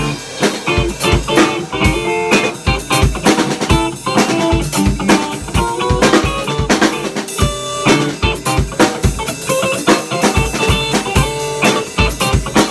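A band playing an instrumental passage of an upbeat pop song: busy drum kit with frequent hits and guitar.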